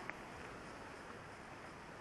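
Steady, faint rushing of river water over rocks, with one brief click just after the start.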